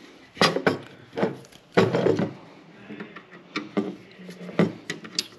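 Handling knocks and clicks from a factory Nissan ECU's opened metal case being set on a table and worked with a screwdriver: a few sharp knocks in the first two seconds, then lighter ticks as the screwdriver tip meets the screws.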